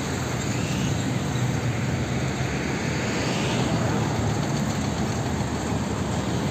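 Nissan Diesel tanker truck's diesel engine running steadily as the truck drives past, over a haze of road traffic noise.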